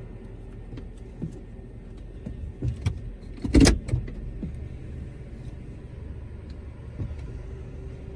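A steady low hum from a car wash tunnel and the car, heard from inside the car. A few knocks come in the first three seconds, and one loud, sharp clunk comes about three and a half seconds in.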